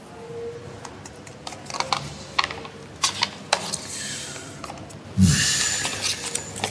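Sheets of paper being handled and shuffled, with light rustles and small clicks, and a louder rustling burst about five seconds in.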